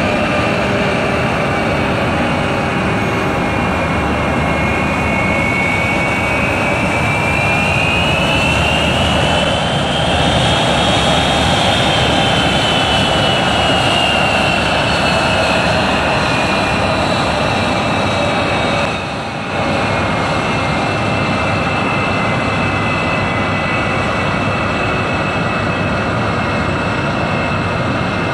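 Airbus A320-232's twin IAE V2500 turbofan engines running at taxi power: a steady jet roar with a high turbine whine. The whine rises to a peak about ten seconds in, then slowly falls as the jet taxis away.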